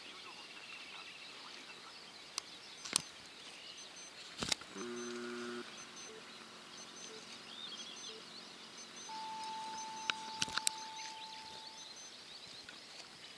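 Quiet seaside morning ambience with small birds chirping faintly, broken by a few sharp clicks, a brief low pitched tone about five seconds in, and a thin steady tone lasting a few seconds near the end.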